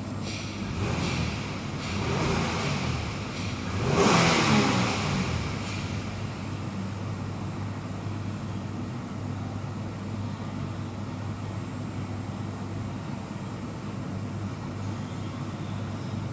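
2011 Mazda CX-9 V6 engine idling, blipped up a little twice, then revved more sharply about four seconds in and settling back to a steady idle.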